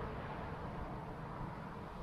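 Steady low outdoor rumble of traffic and wind, with a passing vehicle fading away at the start.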